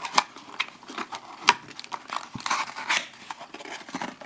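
Crinkly plastic wrapper of a Kinder Joy egg being handled and torn open, with sharp clicks and crackles; the loudest snaps come near the start and about a second and a half in.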